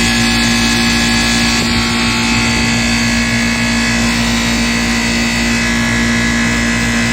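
A machine running with a steady hum, holding one constant pitch throughout.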